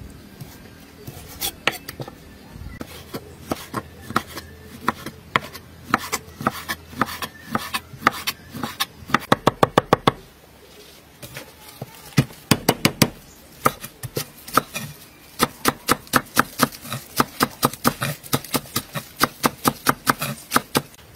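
Cleaver chopping on a wooden cutting board: meat, then garlic and spring onions being minced. Sharp knocks in quick runs of several a second, with a short pause about halfway.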